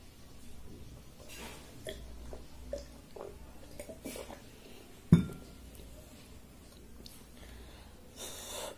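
Fingers mixing water-soaked rice (panta bhaat) in a bowl, with small wet squishes and light clicks. About five seconds in there is one sharp clink, like a glass or dish knocked against the table, and near the end a short breathy rush.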